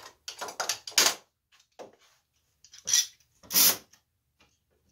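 Hand tools and clamps knocking, clattering and scraping against a wooden workbench as they are picked up and handled. There are quick clusters of knocks in the first second and a short scrape about three and a half seconds in.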